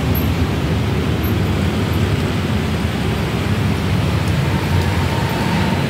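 Steady road-traffic noise, a continuous low rumble with hiss over it.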